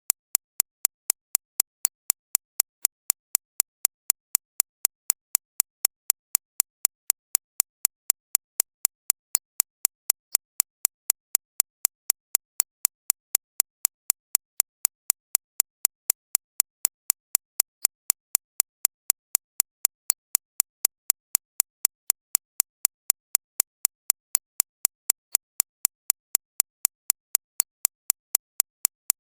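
Synthesized recreation of a shockwave therapy (ESWT) machine's impacts: sharp, high-pitched clicks repeating evenly at about three a second, strongest in the upper treble and tuned to mask tinnitus.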